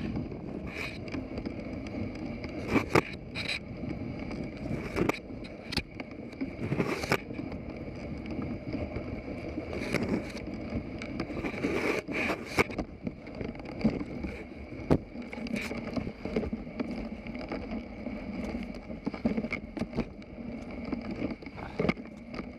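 Dog sled moving through deep snow: a steady scraping hiss from the runners, broken by frequent sharp clicks and knocks at uneven times.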